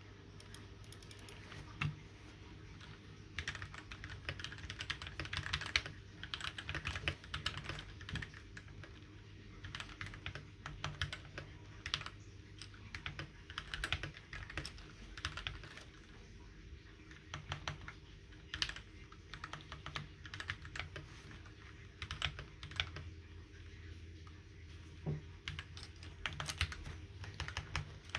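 Typing on a Keychron K6 aluminium mechanical keyboard: rapid key presses come in uneven bursts with short pauses between them.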